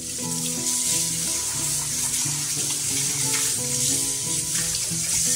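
Tap water running onto a soapy steel plate as it is rinsed at the kitchen sink, a steady hiss, with background music.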